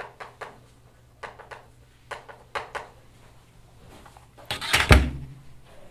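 Chalk writing on a blackboard: a series of short scratchy strokes and taps in the first three seconds, then a single loud thump about five seconds in.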